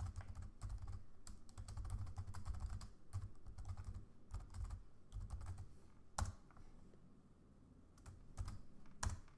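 Computer keyboard being typed on: a quick run of keystrokes entering a terminal command, then a few sparser key presses with two louder single strikes, about six seconds in and near the end.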